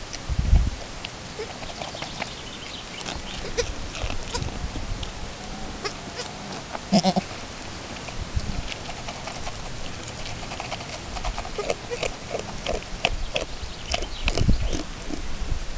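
Chamois-coloured Alpine goat eating from a plastic bowl, with irregular clicks, knocks and crunches from her muzzle in the bowl and scattered hoof steps on gravel. A few dull thumps stand out, the loudest about half a second in and near the end.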